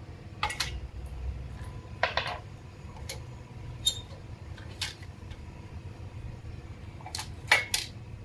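Clutch pressure plate being positioned by hand against the flywheel, its steel cover giving a series of separate metallic clinks and knocks, with a louder double knock near the end.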